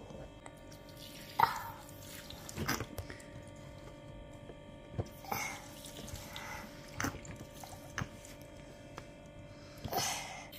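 Water dripping and splashing in a plastic toy car wash playset: a scattering of separate drips and small splashes onto the toy car and into its water tub, over a faint steady hum.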